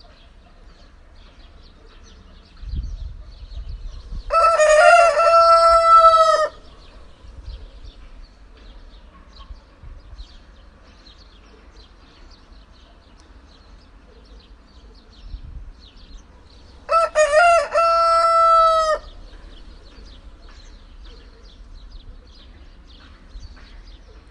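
Rooster crowing twice, each crow about two seconds long and some twelve seconds apart, over faint high chirping.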